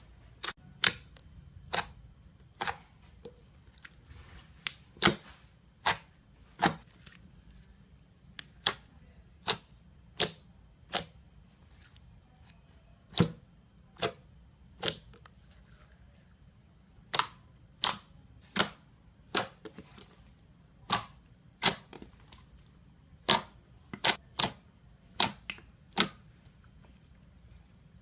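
Slime being squeezed and pressed by hand, air pockets popping in a series of sharp clicks, about one or two a second, with short pauses between runs.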